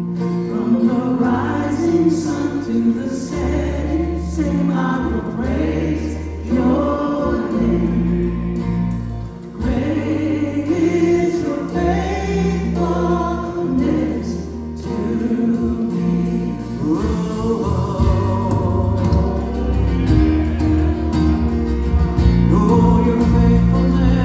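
Gospel music: a choir singing over a sustained bass line.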